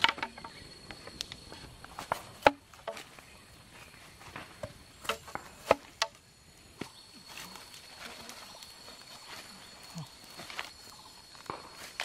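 Scattered sharp knocks and clatters of a bamboo tube and a wooden stick being handled, irregular and well apart. Under them runs a steady, high-pitched insect drone.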